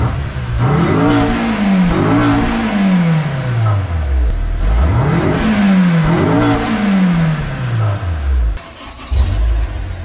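Honda S2000's four-cylinder engine revved twice through its stock exhaust, heard at the tailpipe. Each time the revs climb in two quick stabs, then fall slowly back to idle. Near the end the sound cuts to a steady idle.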